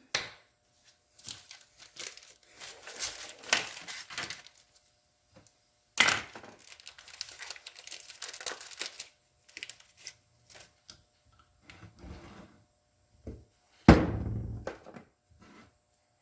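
Hand-work handling noise: rustling and crinkling with small clicks, and two sharp knocks, one about six seconds in and a louder one near the end.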